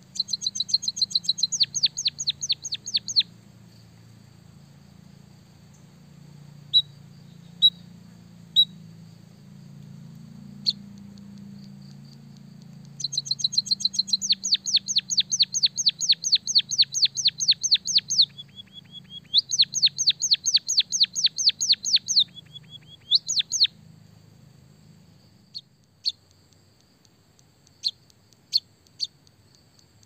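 White-headed munia singing canary-style rolling trills: three long runs of rapid, evenly repeated high chirps at about ten notes a second, the first at the start and two more about halfway through, with scattered single chirps between them.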